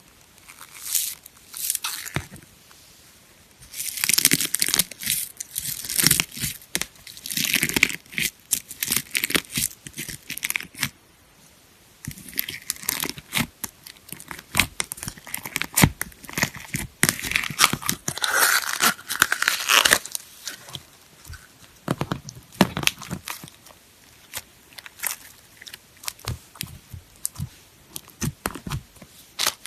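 Slime being worked by hand: squeezed, stretched and poked, giving runs of crackling, sticky clicks and pops in irregular bursts, with a couple of short pauses.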